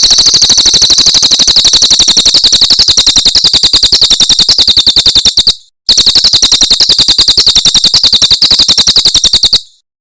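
Cililin bird song played as a masteran training recording: a loud, high-pitched trill of rapidly repeated notes, about a dozen a second, in two long runs with a short break a little over halfway through.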